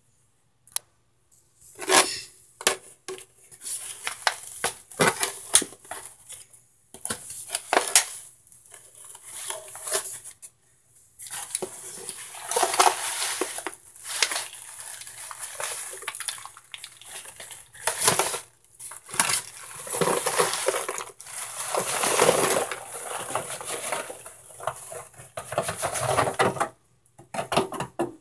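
Chunks of microwaved Argo cornstarch being handled in a disposable aluminium foil pan and a plastic tub: irregular bursts of clattering and crunching, with short pauses.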